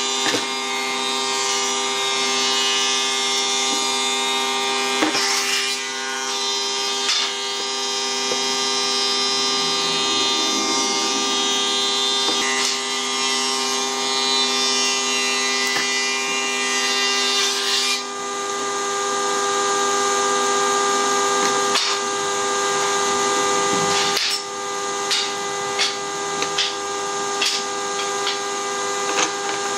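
A steady mechanical hum with a whine, like a motor running, that changes tone about two-thirds of the way in. Several light clicks and knocks near the end, as of a metal square and pen set down on the wooden board.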